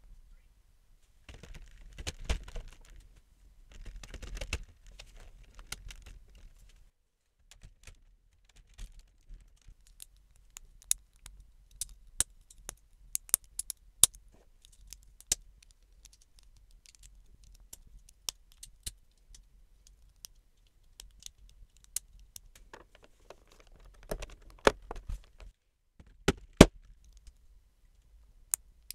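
Plastic LEGO bricks being handled: loose pieces rattling and rustling as they are rummaged through near the start and again near the end, with many sharp separate clicks as bricks are picked up, set down and snapped together.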